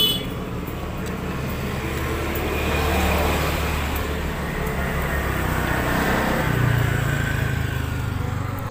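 Motor vehicle engines droning steadily, louder around three seconds in and again near seven seconds.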